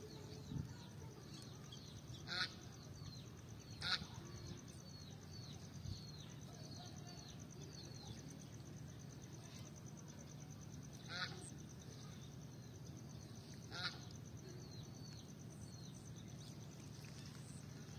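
Domestic waterfowl honking four times, two calls close together in the first few seconds and two more about two-thirds of the way in. Small birds chirp in between, in quick short high notes.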